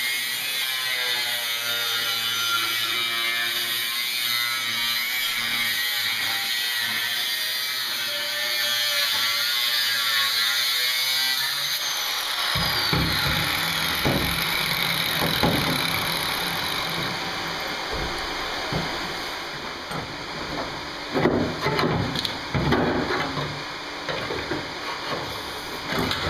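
Angle grinder with a cutoff wheel cutting through a ribbed sheet-steel van floor, its whine wavering in pitch as the load changes, for about the first twelve seconds. After that comes rougher clatter of the cut metal floor being worked, and from about twenty seconds in, a series of sharp knocks of the floor being struck.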